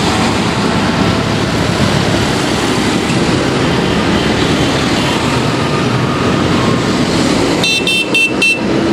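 Convoy of farm tractors and a backhoe loader driving past at road speed, diesel engines running steadily with tyre noise. Near the end a vehicle horn toots three short times in quick succession.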